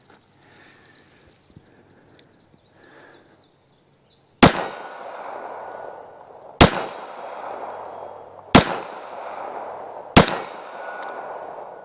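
Four shots from a Beretta 3032 Tomcat .32 ACP pocket pistol firing full metal jacket rounds, starting about four seconds in and spaced about two seconds apart. Each shot is followed by a long echoing tail.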